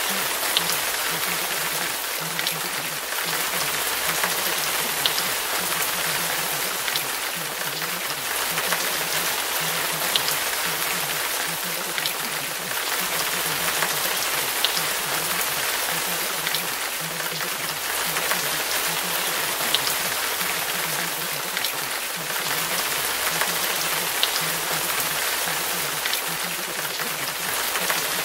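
Steady rain falling: an even hiss with occasional sharper drop ticks.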